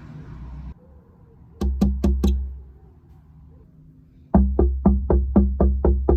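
Knocks on a glass window pane: a quick group of four about a second and a half in, then, after a pause, a fast steady run of knocks at about four a second from about four seconds in.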